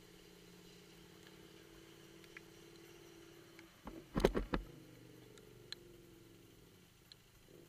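Adventure motorcycle's engine running steadily at low level, with a cluster of loud knocks about four seconds in as the bike jolts over the rough dirt road, and a few faint clicks after.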